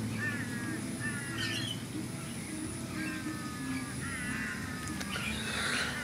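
Wild birds calling: short chirping notes repeated in small groups, over a low steady hum.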